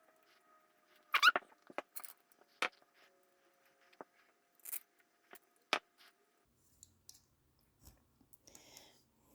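Scattered sharp clicks and taps of small frame hardware, standoffs and screws, being handled and fitted during drone frame assembly, with a brief squeak about a second in that is the loudest sound.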